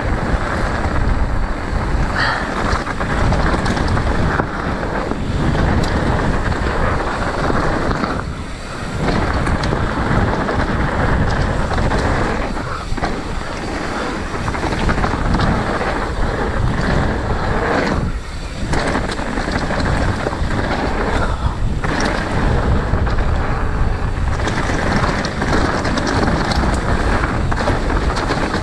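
Strong wind buffeting the microphone as a loud, continuous rumbling roar that dips briefly about four times.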